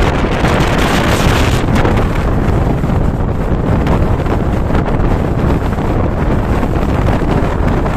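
Passenger train running at speed, heard from an open window: loud wind buffeting the microphone over the steady rumble of the coach on the rails.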